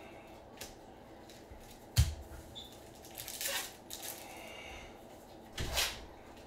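Gloved hands handling a stack of baseball trading cards: a sharp knock about two seconds in, then short rustles of cards sliding against each other, the last with a dull thud near the end.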